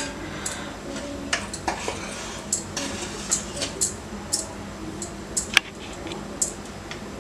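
Metal spoon spreading thick pizza sauce over raw dough on a metal plate, with irregular light clicks and scrapes as the spoon touches the plate. The sharpest click comes about five and a half seconds in.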